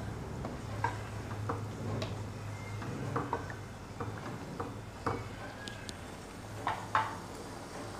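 Wooden spatula stirring and scraping beef and masala in a karahi as it fries in oil during bhunai, with irregular light knocks against the pan. Two sharper knocks come near the end.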